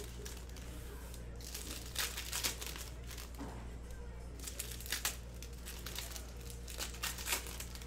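Foil trading-card packs crinkling and tearing as they are handled and opened, in a few short crackling bursts.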